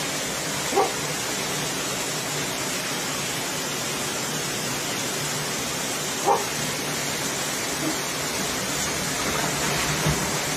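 Muddy floodwater rushing past in a fast torrent, a steady, even roar of water. Two brief sharp cries cut through it, about a second in and again about six seconds in.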